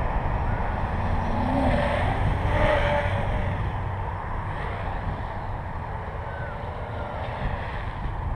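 Wind rumbling on the microphone, with the faint whine of an Armattan CNC 355 quadcopter's electric motors gliding up and down in pitch in the first few seconds as it flies.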